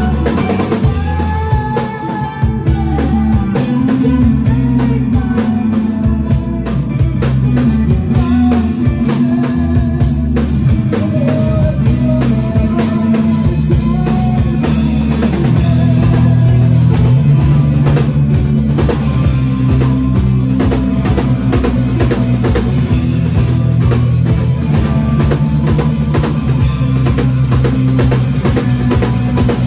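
A band playing with a drum kit, bass and guitar: a steady drum beat over a sustained bass line, with a melody on top.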